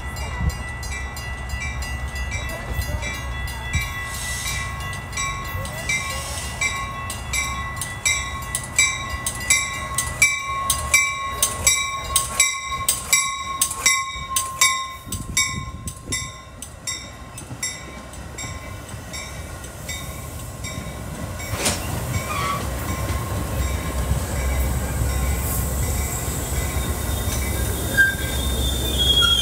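Metra bilevel commuter train pulling into the station and rolling slowly past, its wheels rumbling on the rails. A fast, evenly repeating ring sounds through the first half, and the brakes or wheels start to squeal near the end as the train slows to stop.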